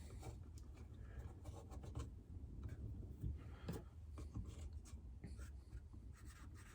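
Faint rubbing and scratching with a few soft taps: hands working soft clay around a clay pot on a potter's wheel head, pressing it down to hold the pot for trimming.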